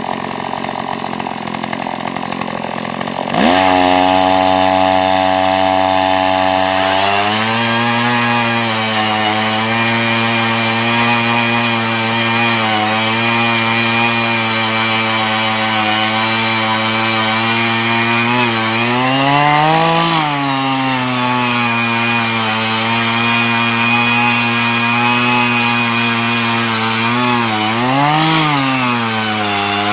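Earthquake E43 one-man auger's 43cc two-stroke engine boring a post hole in root-filled clay. It runs slower for the first three seconds, then is opened up sharply and runs hard under load. Its pitch climbs and drops back twice, past the middle and near the end.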